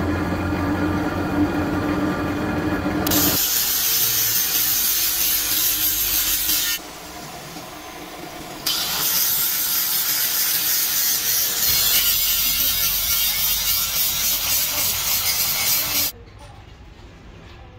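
Angle grinder grinding the teeth of a steel gear clamped in a bench vise: a harsh, steady grinding noise that lets up for about two seconds midway and cuts off abruptly near the end. A steady hum comes before the grinding starts, about three seconds in.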